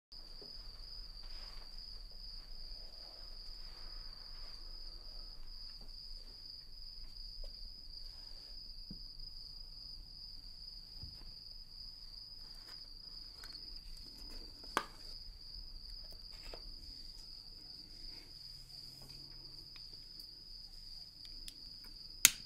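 Crickets trilling steadily at one high pitch over a faint low hum, with a soft click about two-thirds of the way in and a sharp click near the end.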